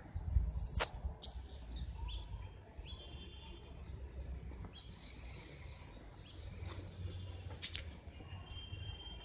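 Faint background noise: a low rumble, a few sharp clicks, and several short high chirps.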